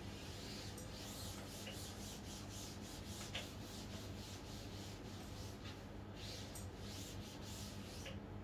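Cloth duster wiping chalk off a chalkboard, a faint rubbing in repeated back-and-forth strokes.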